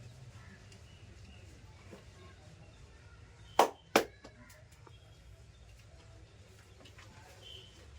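Two loud, sharp hand smacks about half a second apart, over a faint low hum.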